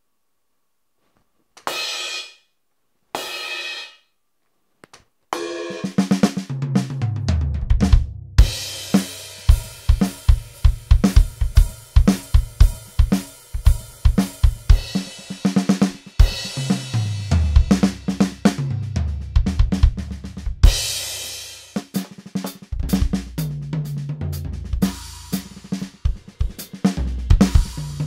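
ATV aDrums Artist electronic drum kit heard through its sound module. First come two cymbal hits, each cut off short by grabbing the pad's edge (cymbal choke). Then a full groove of kick, snare, toms and cymbals follows, using the Alt Rock kit sounds, with a switch to a different kit's sounds about three quarters of the way through.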